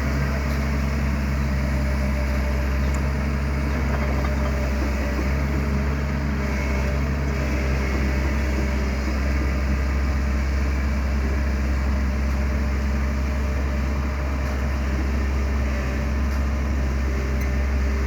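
Excavator's diesel engine running steadily at a constant speed, a low hum with a steady pitch.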